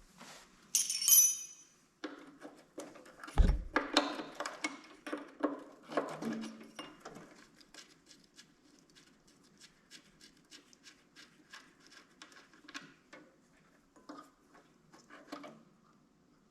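Hand tools clinking and rattling against metal parts of a small engine: a bright metallic clink about a second in, a dull knock a few seconds in, then a long run of small clicks and rattles.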